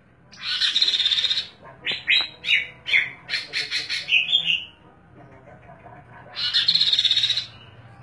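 Caged songbird singing. It gives a buzzy, rattling trill, then a quick run of separate falling whistled notes, and near the end a second rattling trill.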